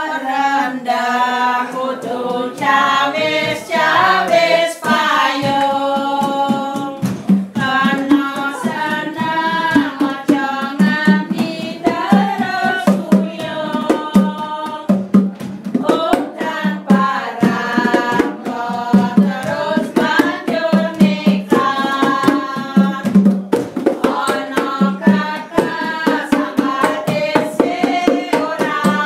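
Voices singing a melodic song over hand drumming on an upturned plastic bucket used as a makeshift drum, which gives a steady low thud, with bongos joining in.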